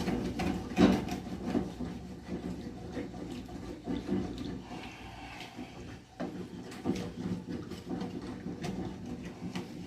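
Utensil scraping the bottom of a frying pan in irregular strokes, loosening the browned bits into simmering honey and soy sauce.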